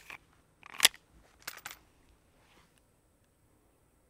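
Mechanical clicks from a semi-automatic pistol being reloaded: a sharp click about a second in as a magazine is seated in the grip, then a softer double click half a second later, then quiet.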